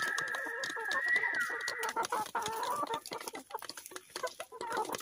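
Free-range country hens clucking while they forage. A long, high, drawn-out call falls away about a second and a half in and gives way to lower clucks, over light ticking of pecking and scratching in dry straw.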